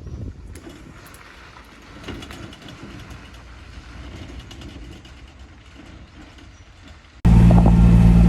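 Engine of a Kubota utility vehicle running steadily, cutting in suddenly and loudly about seven seconds in. Before it, only faint outdoor noise with a few small clicks.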